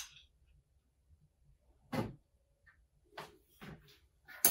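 A spoon knocking against a blender jar as butter is scraped in: one sharp knock about two seconds in, then a few fainter clicks and knocks and another sharp knock at the end.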